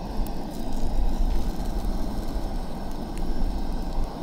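Propane camp stove burner running under a frying pan: a steady low rush, with a couple of light taps as the burrito is handled in the pan.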